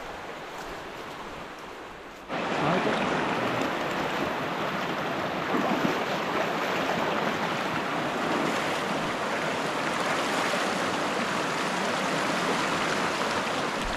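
Mountain river rushing: a steady, dense noise of fast-flowing water. It comes in suddenly and much louder about two seconds in, after a fainter hiss.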